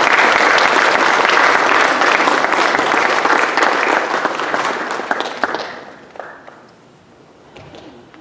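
Audience applauding loudly, dying away about six seconds in.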